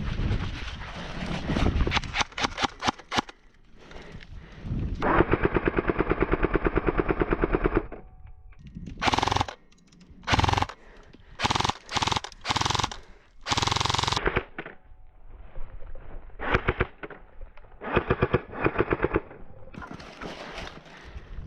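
Airsoft guns firing on full auto: a long burst of about three seconds about five seconds in, then a string of short bursts of rapid shots. Scattered single shots and rustling of the player moving come before them.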